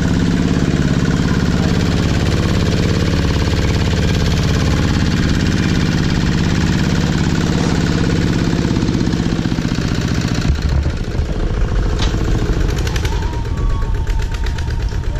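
Single-cylinder diesel engine of a two-wheel walking tractor running steadily under load as it pulls a loaded passenger trailer. About ten seconds in the sound changes and the engine's beat becomes more distinct.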